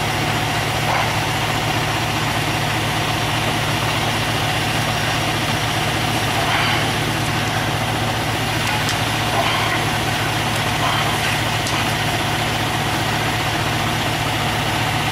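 Large diesel engine idling steadily, with a few faint clinks of metal as the steel underlift forks are handled.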